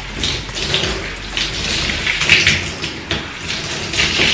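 Bathtub tap running and splashing over a wet curly wig as it is squeezed and rinsed by hand; the splashing swells and falls unevenly.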